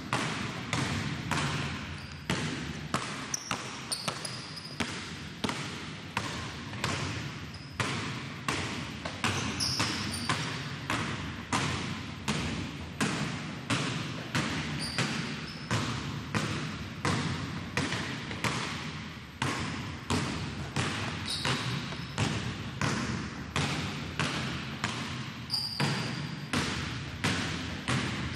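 Two basketballs dribbled together on a hardwood gym floor: a steady beat of about two bounces a second, echoing in the gym. A few short, high sneaker squeaks come at the turns.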